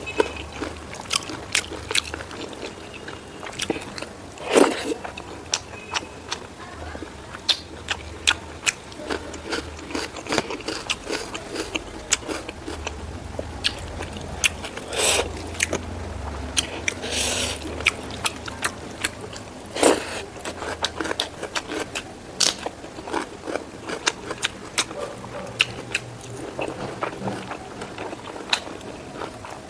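Close-miked eating of pork rib curry with rice: steady chewing and smacking with many sharp mouth clicks, and a few louder bites about four and a half, fifteen and twenty seconds in.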